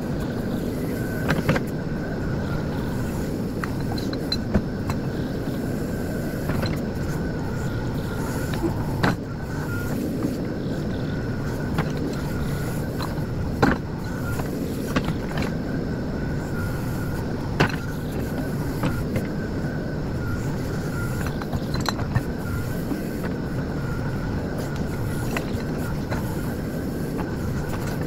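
JCB 4CX backhoe loader's diesel engine running steadily under load as the backhoe arm digs and dumps soil, with a thin steady whine above it. Occasional sharp knocks come from the arm and bucket, the strongest about halfway through.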